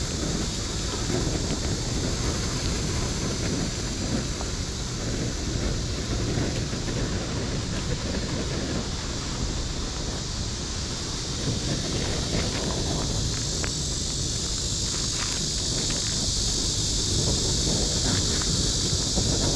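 Wind buffeting the microphone with uneven low rumble, over a steady high hiss that grows a little stronger near the end. A few faint clicks come in the second half.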